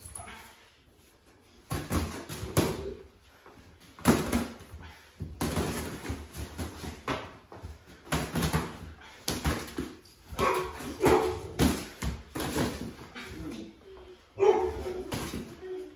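A dog barking repeatedly, short barks coming in quick bouts at irregular intervals.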